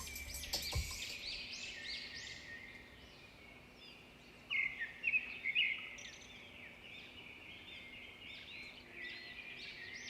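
Many small birds chirping together: short, quick overlapping chirps and calls, with a louder cluster about halfway through.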